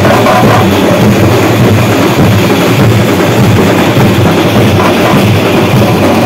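Street band's shoulder-slung drums beaten hard with sticks, a loud, dense, unbroken drumming rhythm.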